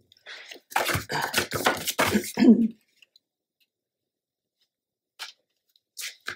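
A few seconds of untranscribed talk, then quiet with a couple of soft clicks of paper and cardstock being handled as a paper liner is pressed into a pocket.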